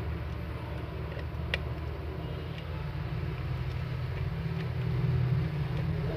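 Steady low engine-like rumble in the background, with one sharp small click about a second and a half in.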